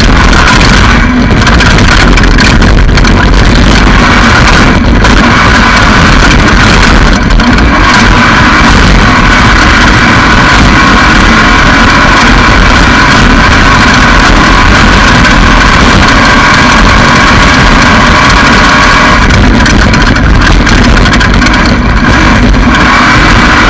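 Off-road race vehicle's engine running hard under racing load, with rushing wind and rattle, heard onboard. It is very loud and pinned near the top of the recording level, with a few brief lifts in the upper noise.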